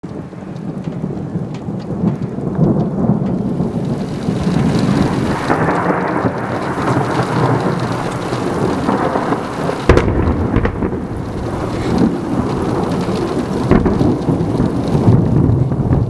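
Thunderstorm with steady rain and rolling thunder that swells in over the first couple of seconds. A sharp thunderclap comes about ten seconds in, followed by more rumbling.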